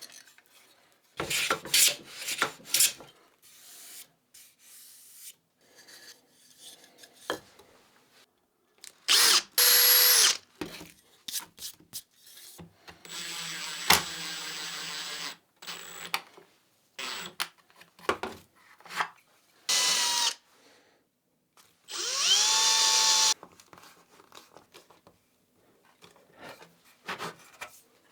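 Woodworking sounds in quick succession: several short runs of a power drill, one spinning up to speed near the end, with knocks and scraping of wood on wood in between.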